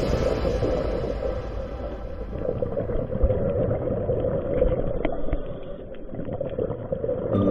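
Muffled underwater noise: a low, steady rumble and wash of water with a few faint clicks.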